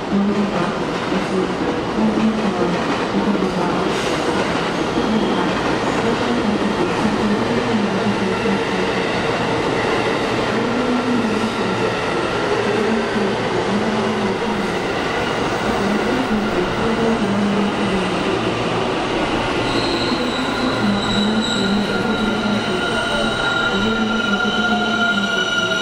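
JR West commuter electric train pulling in along the platform, its wheels and motors running by steadily. In the last several seconds, high squeals come in as it slows, along with a falling motor whine.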